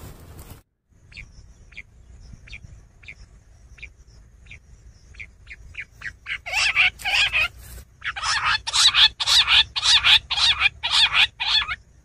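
Quail calling: a run of short, thin notes about every half second that come faster and faster, then from about six seconds in a series of loud, harsh calls about three a second.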